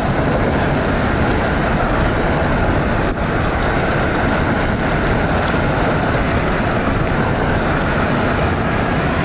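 Freight train hauled by diesel locomotives passing close by: a steady, loud rumble of engines and rolling wheels.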